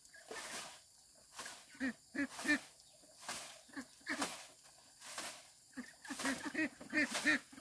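Farm fowl calling in short repeated calls, several in quick runs, with rustling sounds between them.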